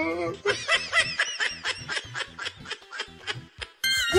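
Someone laughing in a quick, even run of short 'ha' sounds, about five or six a second, for roughly three seconds. Near the end a louder, high-pitched sound cuts in.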